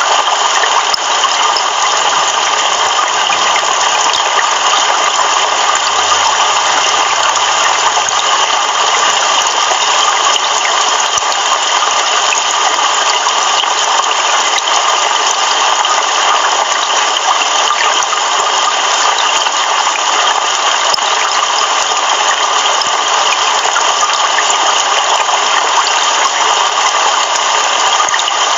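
Heavy rain pouring steadily, a dense, even hiss with no thunder.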